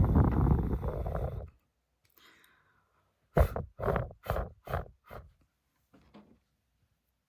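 Close-miked ASMR trigger sounds made by fingers: a loud rubbing, scratching rustle for about a second and a half, then after a pause a quick run of about seven short strokes, with a faint last one near the end.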